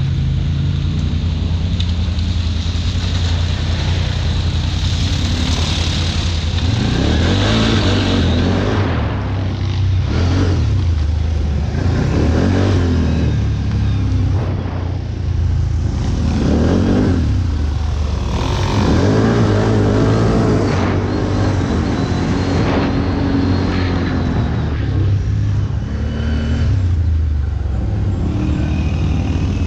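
ATV engines running under load, revving up and down over and over as they climb and throttle off.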